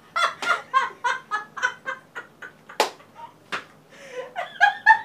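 Women laughing hard in quick, rhythmic bursts, with two sharp smacks about three seconds in.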